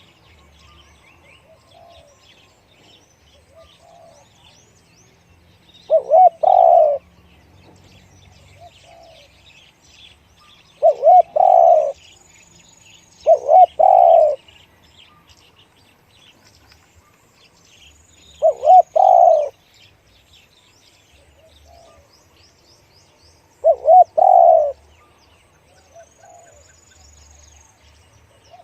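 Spotted dove cooing: five loud coo phrases about every five seconds, each two short notes and a longer one. Small birds chirp faintly between them.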